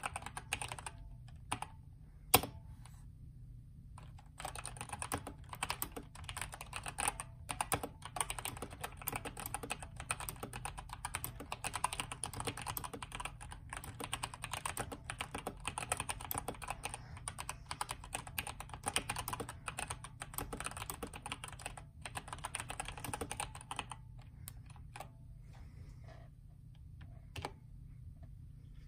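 Typing on a Redragon K552 mechanical keyboard with Outemu red linear switches, its case filled with polyfill and its PCB tape-modded. A few keystrokes and one sharp, loud clack about two seconds in, then fast continuous typing from about four seconds to about twenty-four seconds, then scattered keystrokes.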